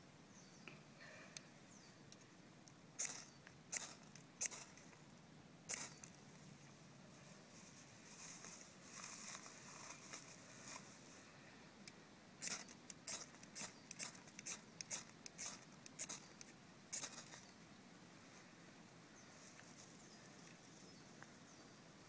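Ferrocerium rod scraped hard with a striker to throw sparks into a dry-grass tinder bundle: four sharp scrapes spaced out, a softer rustle, then a quick run of about a dozen strikes.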